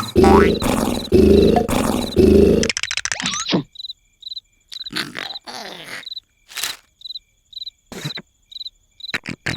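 Cartoon snoring: a loud, rough, roar-like snore pulsing rapidly, which cuts off abruptly about three seconds in. Crickets then chirp steadily about twice a second, with a few short sound effects between them.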